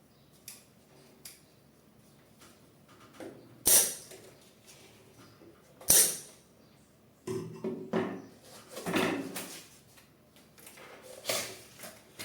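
Printer parts and packaging being handled on a table: two sharp knocks of something hard being set down, then a stretch of rubbing and rummaging and one more clatter near the end.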